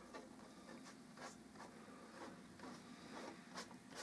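Near silence with a few faint, soft rubbing strokes: a brush spreading wood stain on a piece of maple veneer.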